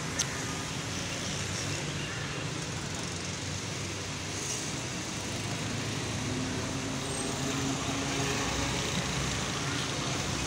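Steady background noise, a low rumble with hiss like distant traffic, with one sharp click just after the start.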